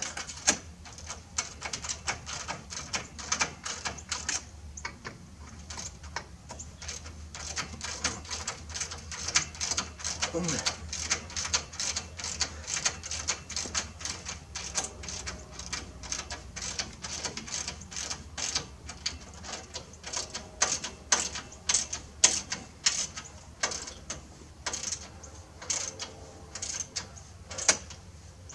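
Ratcheting half-inch socket wrench clicking in quick runs as a nut is run down on a light-bar mounting bolt, with small metal clinks of the wrench and bracket.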